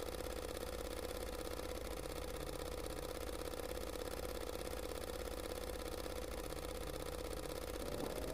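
A steady, quiet droning hum over a background hiss; near the end a tone glides upward into the start of music.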